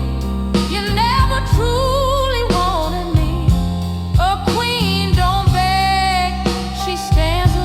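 Slow soul-blues ballad: a voice singing held, sliding notes with wide vibrato over steady instrumental backing.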